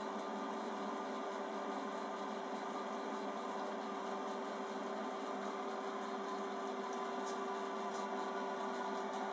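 Motorized haywire twister, an automatic machine for twisting wire fishing leaders, running with a steady motor hum and a few held tones.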